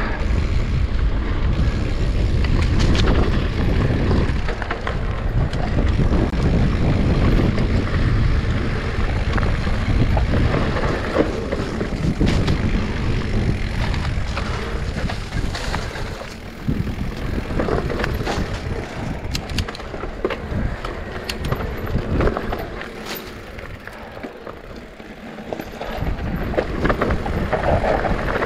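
Riding noise from an electric mountain bike on a trail: wind buffeting the microphone and tyre rumble, with frequent sharp rattles and knocks from the bike going over rough ground.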